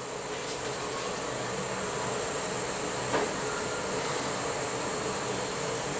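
A steady fan-like whoosh with a faint low hum, and one short click about three seconds in.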